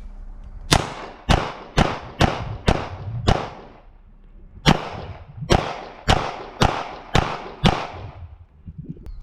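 Handgun fired twelve times: six quick shots about half a second apart, a pause of about a second and a half, then six more at the same pace. It is a six-round strong-hand-only string, then six rounds support-hand-only, fired against a timer.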